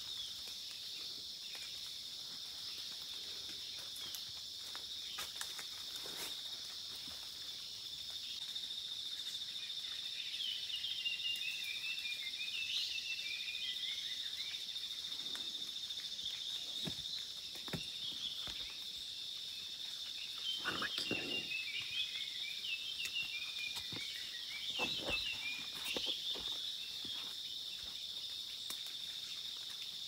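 A steady, high-pitched insect chorus, with a bird twice giving a run of quick chirping notes that fall in pitch, about ten seconds in and again about twenty seconds in. A few soft knocks sound in between.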